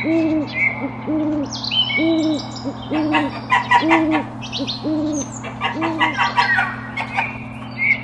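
Bird-sound recording of an owl hooting, a steady run of low hoots about one a second, with songbirds chirping and trilling over it, most busily in the middle of the stretch.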